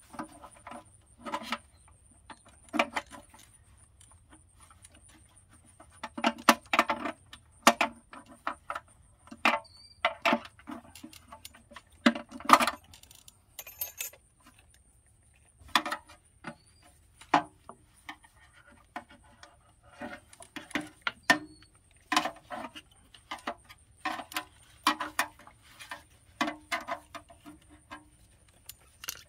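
Small screwdriver prying at the metal wheel-cover cap on a Ford F-350 dually's rear wheel: irregular metallic clicks, taps and scrapes, sometimes several in quick succession.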